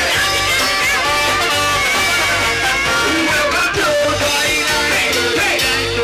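Live band playing upbeat ska-style music: a steady bass beat, electric guitar, horns and a singing voice.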